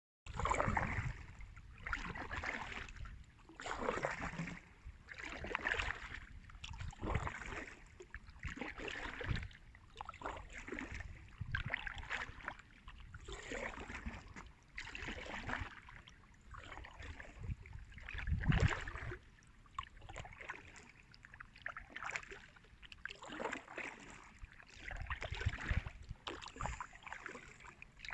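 Kayak paddle strokes, the blade dipping and swishing through river water in a steady rhythm, about one stroke every second and a half, over a low rumble.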